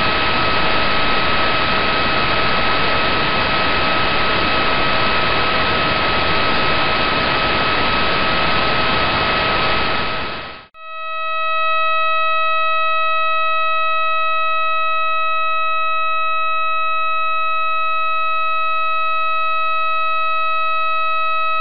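Radio signal of the millisecond pulsar B1937+21 turned into sound. First a loud hiss with a steady high tone running through it, then, after a brief break about 11 seconds in, a clean steady buzzing tone with no hiss. Its pitch, about 640 pulses a second, is the pulsar's spin rate.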